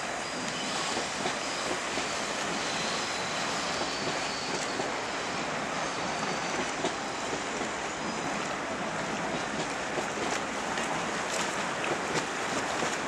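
Steady outdoor waterside ambience: an even hiss of wind and lapping water, with no single sound standing out.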